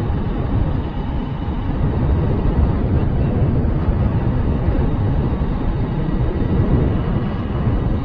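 A motorbike riding along a road, its running mixed with wind rushing over the microphone as a steady low rumble.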